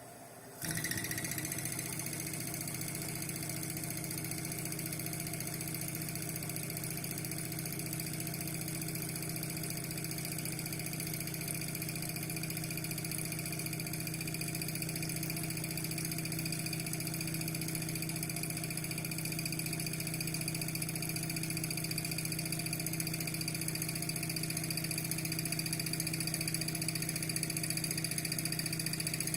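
Toilet making a stuttering noise after a flush: a steady, low-pitched mechanical hum with hiss. It starts suddenly about half a second in and runs on unchanged, typical of a fill valve vibrating as the tank refills.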